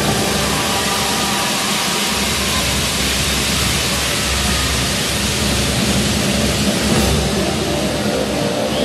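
Loud, even crowd applause and cheering in a hall, almost drowning out the marinera music playing beneath.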